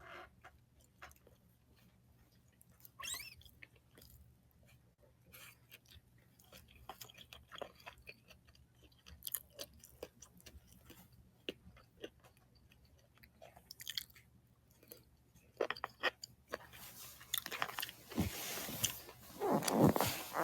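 A person eating a bento close to the microphone: quiet chewing with scattered small clicks and taps. A louder stretch of noise comes near the end.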